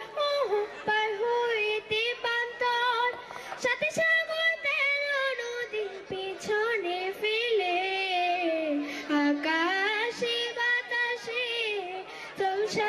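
A young girl singing solo into a handheld microphone: a slow melody with long, wavering held notes.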